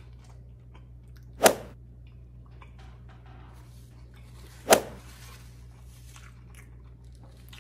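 A person biting into and chewing a mouthful of McDonald's Prosperity chicken burger, with soft, wet mouth noises. Two short, loud noises stand out, about a second and a half in and again about three seconds later.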